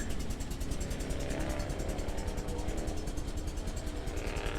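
A car engine running at idle, a steady low rumble.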